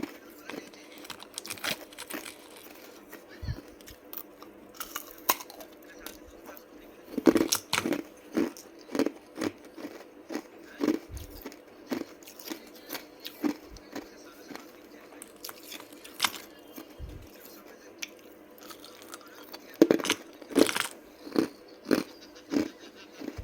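A person biting and chewing ice close up: crisp crunches, with loud bites about a third of the way in and again near the end, each followed by a run of steady chewing crunches about two a second.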